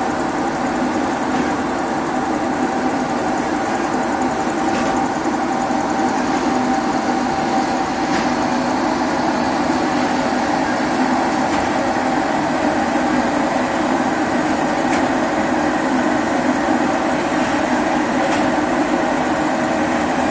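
Corrugated-cardboard production line (corrugator) running: a loud, steady machine drone with a constant whine, and a faint tick about every three to four seconds.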